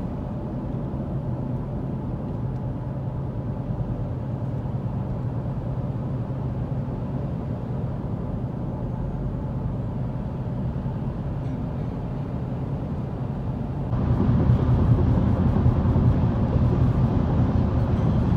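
Steady road noise inside a moving car's cabin: engine hum and tyre rumble. It steps up abruptly and gets louder about fourteen seconds in.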